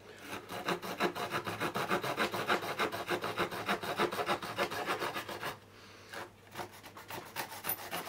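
Small wood-saw blade of a pocket multi-tool cutting by hand through rough pallet wood in fast, short back-and-forth strokes, with the cut nearly through. The strokes stop briefly about five and a half seconds in, then a few more follow.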